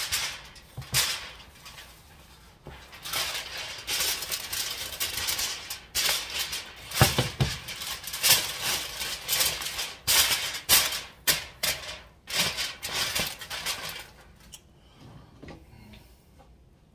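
Sheet of aluminium foil crinkling and crackling in irregular bursts as it is pressed and crimped around a cooking pot to seal it, dying down near the end.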